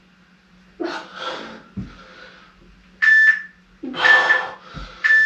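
Workout interval timer giving three short electronic beeps about a second apart near the end, counting down the last seconds of the exercise interval. Heavy breaths of exertion come about a second in and with the second beep.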